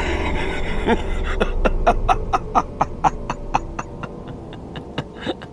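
A man laughing in a long run of short 'ha' bursts, about five a second, fading toward the end.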